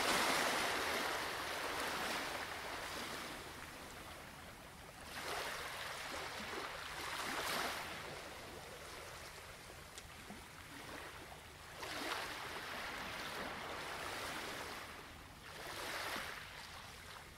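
Sea surf: waves breaking and washing in, swelling and fading about four times.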